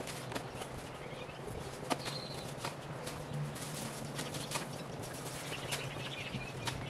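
Irregular clicks, light knocks and rustling over a low steady hum, with a short bird chirp about two seconds in.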